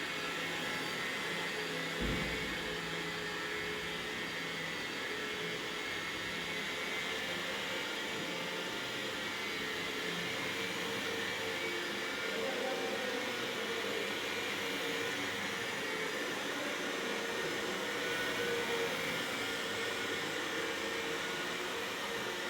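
Electric power sander running steadily with a continuous motor whir, with a single low bump about two seconds in.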